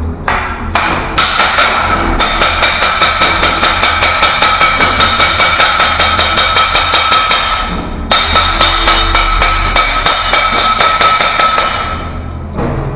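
Hammer rapidly striking the steel barrel of a diamond core drill bit, about five blows a second, the tube ringing with a steady metallic tone. There is a brief break about eight seconds in, and the blows stop near the end.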